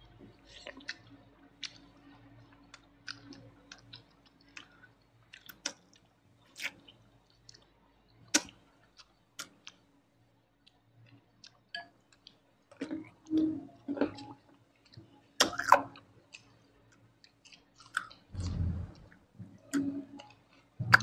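Close-miked eating ASMR: a person chewing food, with scattered sharp mouth clicks that come more often and louder in the second half, and a dull thump a few seconds before the end.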